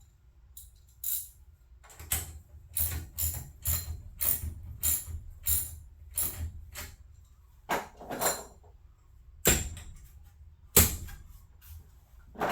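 Metal clinking and clacking, about two sharp clicks a second for several seconds, then a handful of louder single clanks, typical of tools working on garage door hardware.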